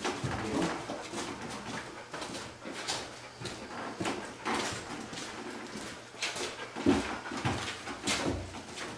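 Sounds of a young Deutsch Drahthaar, with short knocks at irregular intervals; the loudest comes about seven seconds in.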